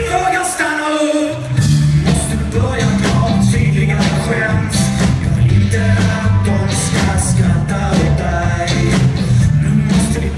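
Rock band playing live: singing over electric guitar and bass guitar with a steady beat. The bass drops out briefly at the start, then the full band comes back in about a second and a half in.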